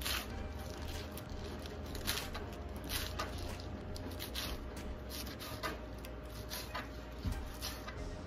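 Knife slicing through crisp bok choy stalks and knocking on a plastic cutting board, in irregular, unhurried cuts about one a second.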